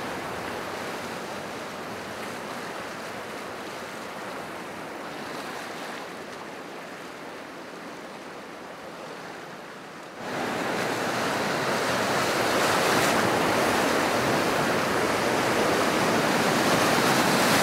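Whitewater rapids rushing steadily around a raft. About ten seconds in the rush jumps suddenly louder as the raft drops into breaking waves.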